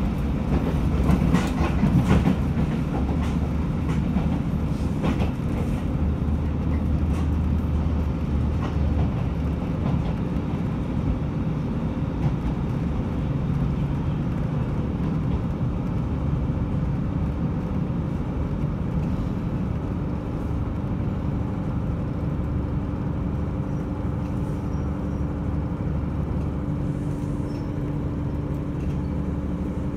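KiHa 75 diesel railcar running at speed, heard from inside the passenger cabin: a steady low rumble of engine and wheels with a constant hum. Wheel clicks over rail joints come through in the first several seconds, then the running noise evens out.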